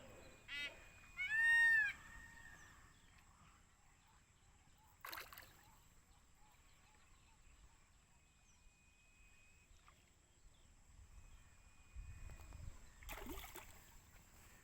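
An animal calling outdoors: one loud call that rises and falls in pitch about a second and a half in, after a shorter one just before. Fainter thin calls follow later, along with a few brief sharp knocks or splashes.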